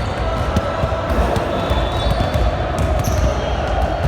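Basketball thudding on an indoor court floor during play, with a few short high squeaks near the end, over the steady din of the gym.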